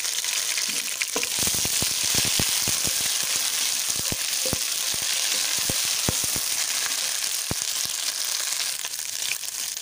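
Ginger-garlic paste sizzling in hot ghee in a non-stick pot. A wooden spoon stirring it makes many short ticks and taps against the pot from about a second in.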